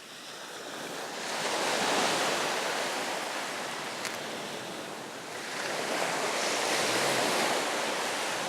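Surf on a beach: waves washing in, the rushing noise swelling about a second in, easing off, then swelling again about five and a half seconds in.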